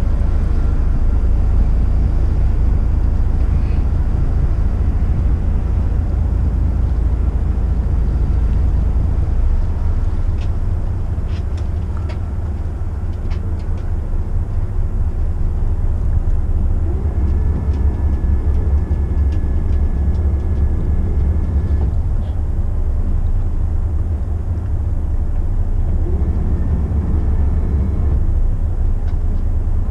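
Steady low rumble of a McKinna 65 motor yacht's diesel engines running at slow, no-wake speed, heard from the flybridge.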